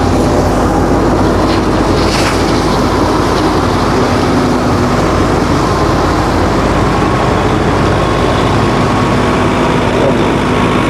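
Sonalika Tiger and Kubota tractors' diesel engines running steadily under load, their rotavators churning through flooded paddy mud and water.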